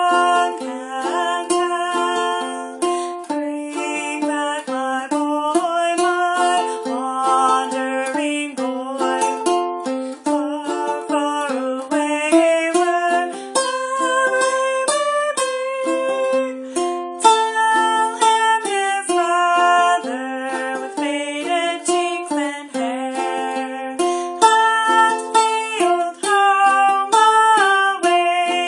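Ukulele played clawhammer style: a steady old-time melody of plucked notes mixed with brushed strums.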